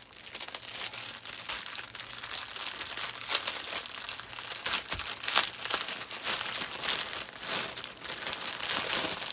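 Clear plastic wrap crinkling continuously as hands unwrap a bundle of bagged diamond-painting drills.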